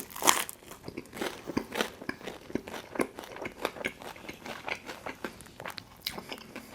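Close-miked biting and chewing of Detroit-style pizza: a loud crunchy bite just after the start, then a run of crisp crunches as it is chewed.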